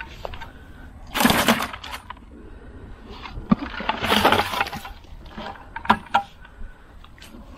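Freshly caught tilapia and a plastic bucket being handled on grass: two bursts of rustling and crackling, about a second in and again about four seconds in, with scattered sharp taps between them.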